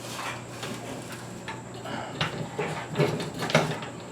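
Scattered light clicks and knocks of a ceiling fan's metal parts being handled and lifted toward the ceiling bracket, a few sharper knocks past the middle, over a steady low hum.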